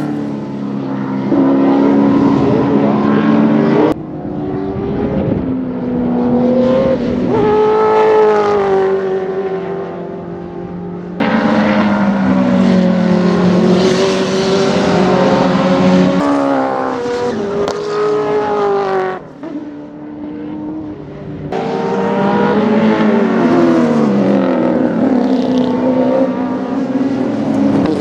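Heritage Group A and Group C touring car engines at racing speed, revving up and dropping back through gear changes as the cars pass on track. The sound is a string of short clips joined by abrupt cuts, about four times.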